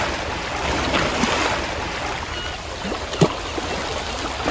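Small waves washing over shingle and rocks at the water's edge, with one short sharp sound about three seconds in.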